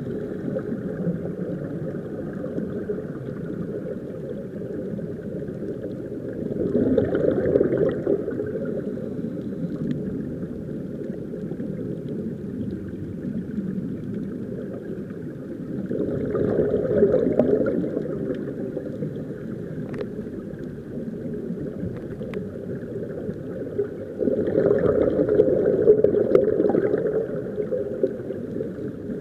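Underwater rumble and bubbling heard through a camera's waterproof housing, from air escaping the sea-walk helmets. It swells louder three times, about every eight to nine seconds.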